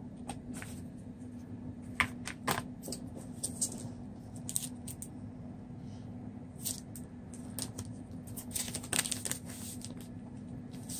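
Handling noise from a phone unboxing: scattered small clicks, taps and rustles as the cardboard box and the plastic-filmed phone are picked up and moved about. A steady low hum runs underneath.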